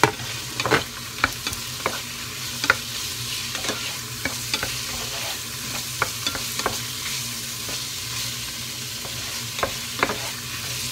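Chicken and vegetables frying in a nonstick pot with a steady sizzle while a wooden spatula stirs them. The spatula scrapes and knocks against the pot a dozen or so times, with the sharpest knocks near the start and just before the end. A steady low hum runs underneath.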